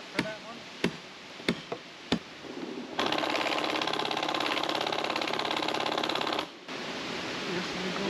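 Several light hammer taps, then, about three seconds in, a cordless DeWalt power tool runs with a fast rattling buzz for about three and a half seconds before stopping abruptly.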